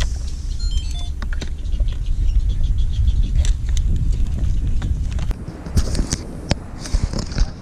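Steady low rumble of wind on the microphone, with scattered small metal clicks and ticks of pliers on a treble hook as a lure is worked free of a netted fish.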